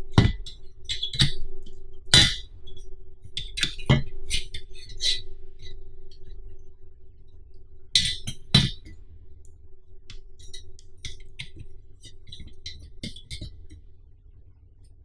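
The slotted metal crossbar of a tripod banner stand clinking and knocking against the stand as it is handled and fitted, with a run of small sharp clicks and several louder knocks, two close together about eight seconds in, thinning out near the end.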